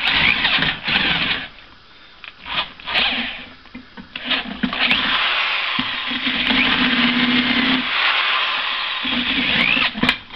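Corded electric drill with a 3/4-inch bit boring into a wooden board: a few short bursts, then about six seconds of the motor running under load as the bit cuts, stopping near the end.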